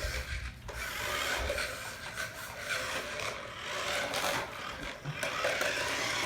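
Toy remote-control car driving into things, its wheels and body giving an irregular rasping, rubbing scrape that comes and goes.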